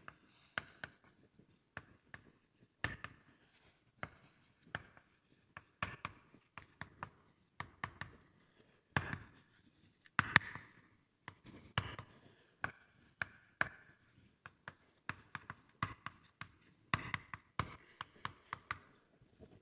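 Hand writing on a board: an irregular run of sharp taps and short scratching strokes, the loudest about ten seconds in.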